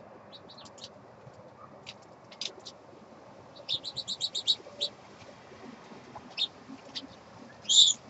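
Small songbirds chirping: scattered short high chirps, a quick run of about eight notes around the middle, and one louder call just before the end.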